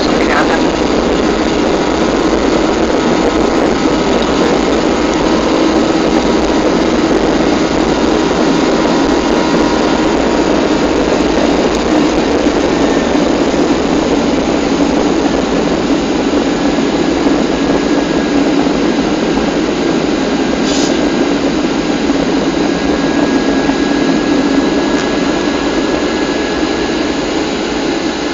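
Cabin noise of a Boeing 737's turbofan engines in flight, heard from a seat over the wing: a steady roar with a low hum, easing slightly near the end.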